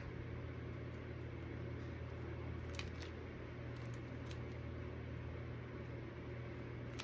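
A steady low hum with a few faint, short clicks of a tool against resin molds: one just before three seconds in, a couple around four seconds, and one at the end.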